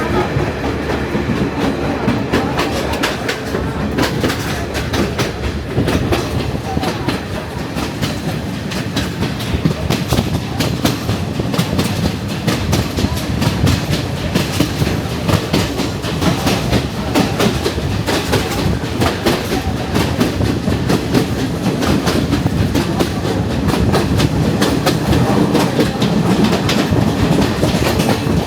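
Passenger train running, heard from inside a carriage: a steady rumble of wheels on track with rapid clicks and clacks over the rail joints, growing slightly louder near the end.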